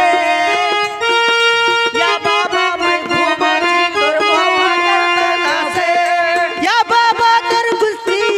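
Harmonium playing a melodic interlude between qawwali verses: a run of sustained, reedy held notes that step from pitch to pitch.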